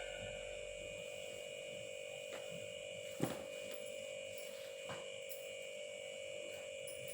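Steady electrical hum with a constant mid-pitched tone, broken by a few faint clicks; the sharpest click comes about three seconds in.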